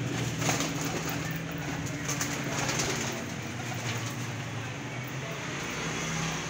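Domestic pigeons cooing, over a steady low hum.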